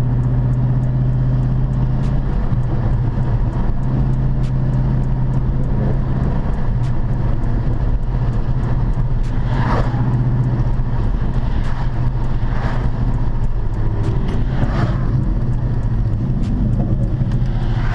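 2006 Dodge Charger's 5.7-litre Hemi V8 cruising at a steady speed, a steady low engine drone heard from inside the cabin.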